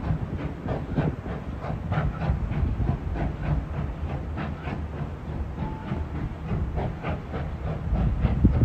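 Narrow-gauge steam train crossing a steel trestle bridge: a steady low rumble with a quick run of sharp beats, two or three a second, and a steam hiss.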